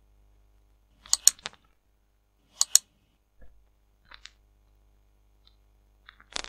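Sharp clicks in small groups, a few quick ones about a second in, a pair near three seconds, more around four seconds and just before the end.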